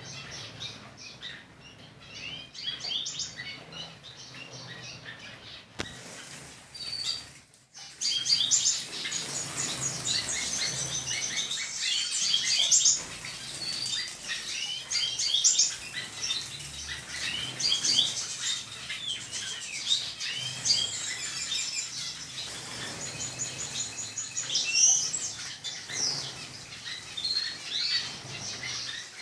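A mixed flock of small aviary birds, canaries and finches, chirping and twittering together in many overlapping short calls and trills. The sound breaks off briefly about seven seconds in, then comes back louder and busier.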